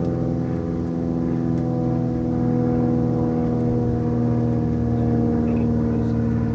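A steady, even hum made of several stacked pitches, unchanging throughout.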